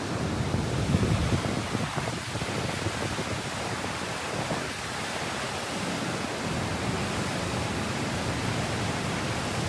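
Water gushing through the gap of partly opened lock gates into a lock chamber, a steady rushing of churning whitewater as the water levels on either side are evened out.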